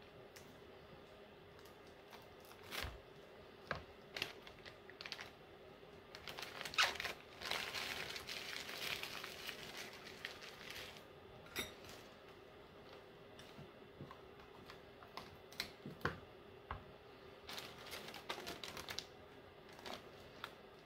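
Gloved hands handling paper coffee filters and working lotion bars out of silicone molds: soft crinkling and rustling with scattered light taps, busiest for several seconds around the middle.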